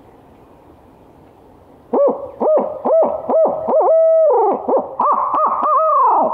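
A man imitating a barred owl by mouth through cupped hands. A run of loud hoots begins about two seconds in, with a longer held note in the middle and a final note that falls away, in the barred owl's 'who cooks for you' rhythm. It is a locator call, hooted to make gobblers answer.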